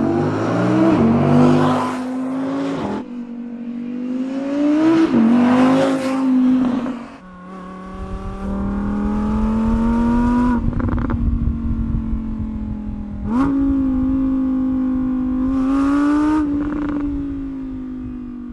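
Audi R8's 5.2-litre V10 engine revving and pulling, its pitch climbing and dropping several times, with a sharp blip of revs about thirteen seconds in. A deep rumble joins the engine for several seconds in the middle.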